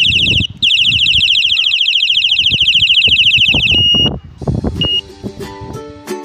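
Battery-powered electronic bicycle horn on the handlebar: a brief steady beep, then a fast-warbling siren tone for about three seconds, then two short beeps. Background music with plucked strings comes in near the end.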